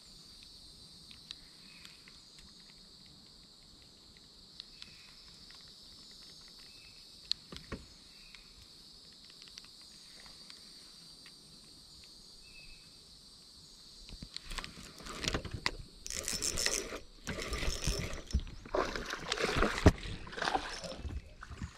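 Faint steady high insect buzz with a few light clicks. About two-thirds of the way through come loud irregular rustling and splashing, as a hooked bass is fought and brought to the boat side.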